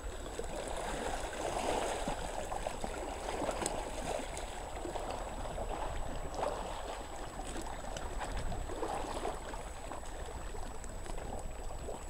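Small sea waves washing over a pebble beach: a steady wash that swells and eases every few seconds.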